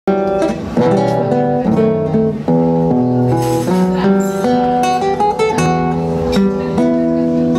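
Solo nylon-string classical guitar played fingerstyle: plucked chords and a melody line, with now and then a strummed chord, as the introduction to a tango.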